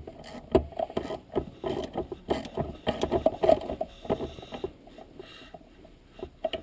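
Hand ratchet clicking in quick, uneven strokes while the shifter's dust-boot retaining bolts are tightened down, with small metallic knocks of the tool on the parts; the clicking stops about four and a half seconds in.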